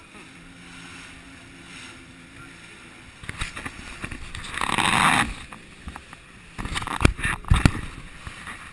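Motorboat running over open sea: water rushing past the hull, a loud wash of spray about five seconds in, then two sharp thumps half a second apart.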